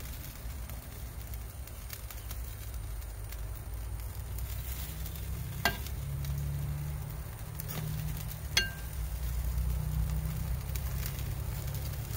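Chicken wings sizzling on a hot charcoal grill grate as they are turned and placed with metal tongs. Twice, about six and nine seconds in, the tongs clink sharply against the grate and ring briefly.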